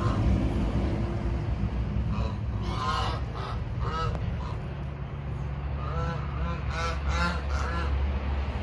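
White domestic geese honking in short, repeated calls, in two bouts starting about three and six seconds in, over a steady low rumble.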